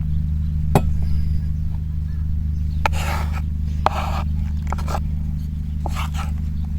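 A utensil scraping and clicking against a cooking pot three or four times, as food cooked over solid fuel and slightly burnt is stirred or scooped out. A steady low hum continues underneath.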